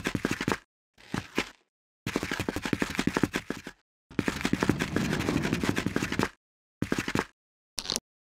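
Power-tool sound effect: rapid hammering like a jackhammer, in several bursts. Two longer runs of about two seconds each come in the middle, with short bursts before and after.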